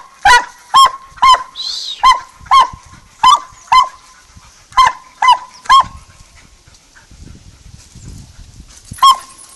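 Walker coonhound barking at a cornered raccoon in short, sharp barks, about two a second, then breaking off for a few seconds before one more bark near the end.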